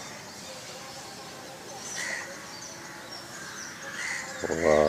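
Birds chirping and calling, with short high chirps and a few louder calls scattered over a steady outdoor background. Near the end a person's voice begins a long, drawn-out exclamation.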